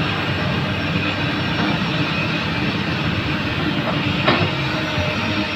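Komatsu PC200 hydraulic excavator's diesel engine running steadily under load, with one sharp knock about four seconds in.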